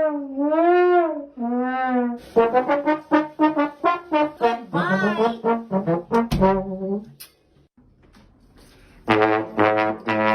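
Trombone played as comic sound effects: slow wavering wah-wah notes that bend up and down, then a run of quick short notes with a slide in the middle. After a short pause, more quick notes come in near the end.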